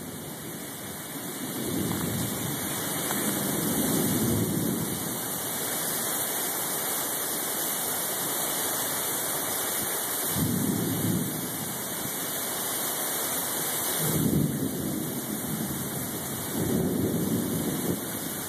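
Heavy rain pouring steadily, with several low rumbles that swell and fade: near the start, about ten seconds in, about fourteen seconds in and near the end.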